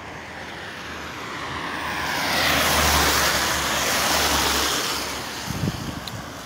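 A car passing close by on a rain-soaked road, its tyres hissing through the water: the sound swells for a couple of seconds, is loudest around the middle, then fades as the car goes by.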